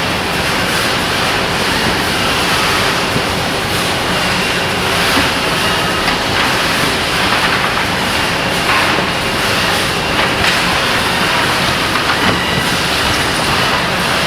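Continuous, loud machinery noise with a light rattle and a faint steady hum throughout.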